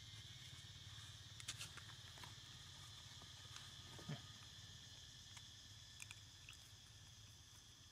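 Near silence: a faint steady drone of insects in the background, with a few soft clicks and a brief low sound about four seconds in.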